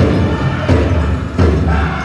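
Powwow drum group playing a chicken dance song: a big drum struck in a steady heavy beat about every two-thirds of a second, with the singers' high voices over it.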